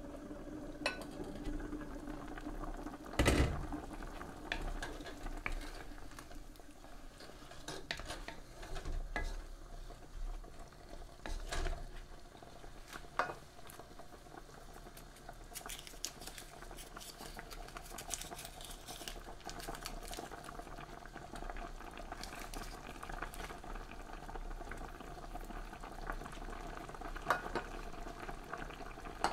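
Chicken pieces simmering in broth in an open pan, bubbling steadily with many small pops. A single knock about three seconds in, just after the glass lid is lifted off.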